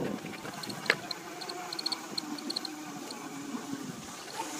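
Electric scooter running slowly, its motor giving a faint wavering whine, with a sharp click about a second in and light repeated ticking.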